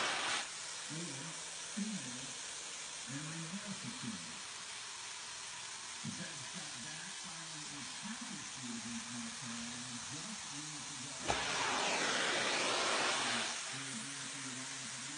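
Carpet cleaner upholstery tool sucking water and air through a fabric chair seat: a steady suction hiss that is loud at the very start, drops back, then surges loud again for about two seconds about eleven seconds in. A faint low hum sits underneath.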